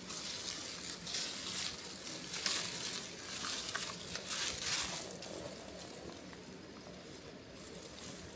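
Dry rice stalks rustling and crackling as they are handled during the harvest, in irregular bursts that ease off in the last few seconds.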